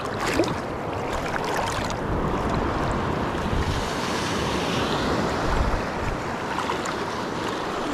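Sea waves washing on the shore, with wind buffeting the microphone in a steady low rumble.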